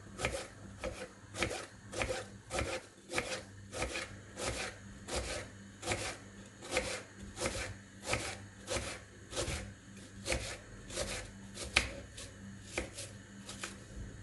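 Small kitchen knife slicing an onion into thin half-moon slices on a wooden cutting board, each cut ending in a tap of the blade on the board. The strokes come steadily at about one and a half a second, with one sharper knock about twelve seconds in.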